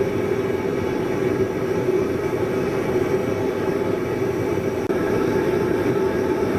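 Forge running with a steady, unbroken rushing noise as a hammer head heats toward hardening temperature.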